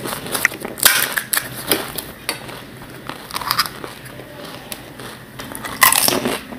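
Crisp fried panipuri (fuchka) shells crackling and crunching as they are cracked open with the fingers and chewed. The sharp crunches come in irregular clusters, and the loudest group falls near the end.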